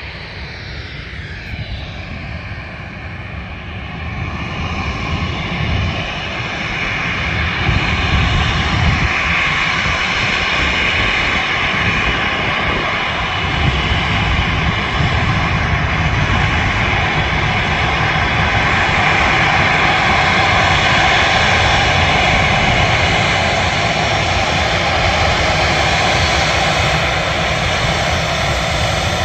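Jet airliner's turbofan engines at taxi power, a steady rumble with a high whine. It grows louder over the first several seconds and then holds as the jet taxis close by.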